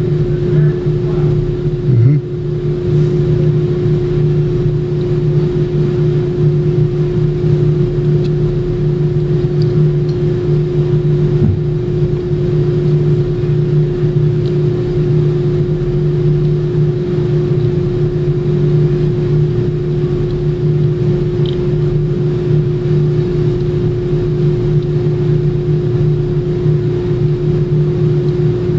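Steady mechanical drone, a constant low hum with a higher fixed tone over it, unchanging throughout, with a small knock about two seconds in.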